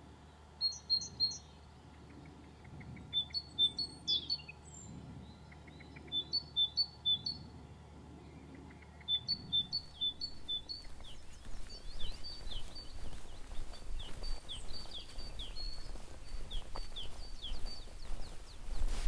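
Small songbirds calling, high short notes in quick groups of three to five that repeat every couple of seconds. About ten seconds in, a different series takes over: falling notes about twice a second over a low rumble.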